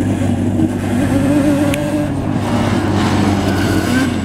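Yamaha Banshee 350 ATV's two-stroke parallel-twin engine running and revving as the quad rides across gravel, its pitch wavering up and down.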